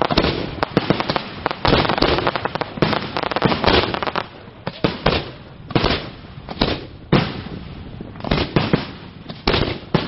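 Aerial fireworks bursting with sharp bangs, densely overlapping in rapid succession for the first few seconds, then separate bangs about twice a second.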